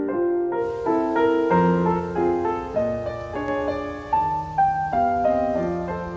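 Solo piano music: a flowing melody of single struck notes over held low bass notes.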